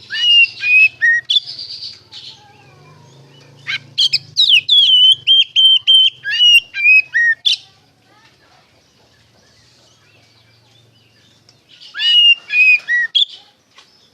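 Oriental magpie-robin (kacer) singing loud, clear whistled phrases of sliding notes and quick repeated whistles, in three bursts with a few quiet seconds between the second and third.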